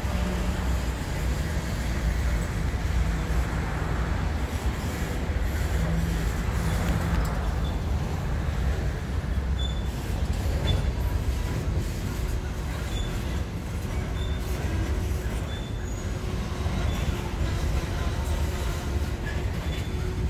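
Empty open-top coal hopper cars of a freight train rolling slowly past as the train slows to stop, a steady low rumble with short, faint high squeals from the wheels.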